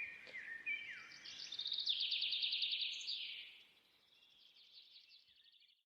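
Birds chirping: a few short falling chirps, then a rapid high trill for about two seconds that fades out, with fainter trills near the end.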